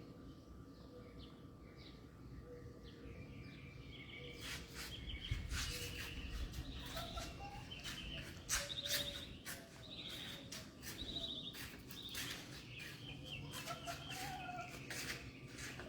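A hen calling softly, with birds chirping repeatedly around her; the chirping grows busier about four seconds in.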